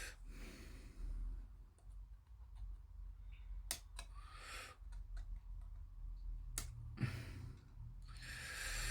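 A few faint, sharp clicks of plastic model-kit parts being cut from the sprue and handled, between soft hissing sounds, over a low steady hum.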